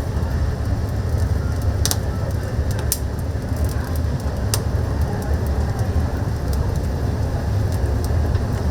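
Oak firewood burning in a chicken-roasting oven, with a few sharp crackles over a steady low rumble.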